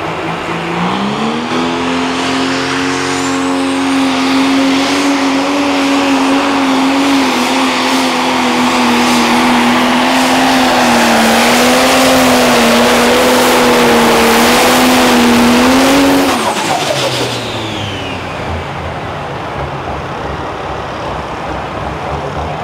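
Turbocharged diesel engine of a pro stock pulling tractor opens up about a second in and runs at full throttle through the pull, its pitch wavering under load, while a high whistle climbs over the first few seconds. About sixteen seconds in it is shut off and drops back to a low idle as a falling whistle dies away.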